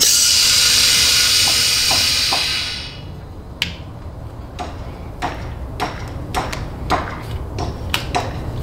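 Pressurized abrasive blaster nozzle letting out a loud hiss of compressed air, which fades out about three seconds in. Then comes a string of sharp clicks, roughly two a second.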